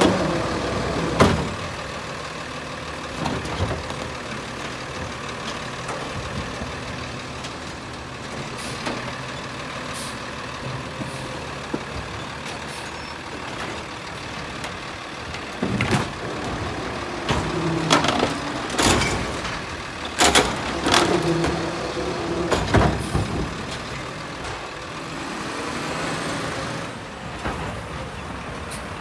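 Diesel engine of a Crane Carrier garbage truck running while its automated side-loader arm lifts and empties a recycling cart, with a loud bang about a second in. Several more loud bangs and hisses come in the second half.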